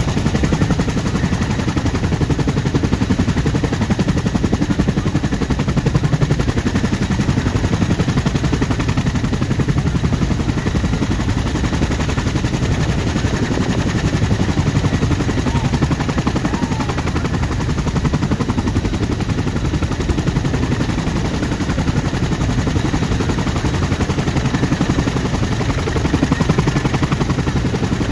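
CH-47 Chinook tandem-rotor helicopter running on the ground with both rotors turning: a loud, steady, rapid chop of the rotor blades.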